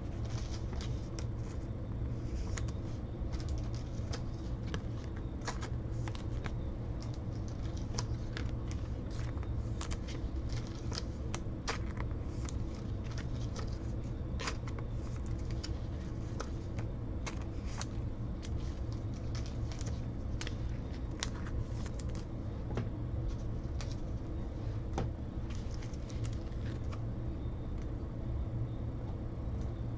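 2019 Panini Chronicles Baseball trading cards being flipped through by hand: frequent, irregular crisp clicks and snaps of card against card, over a steady low hum.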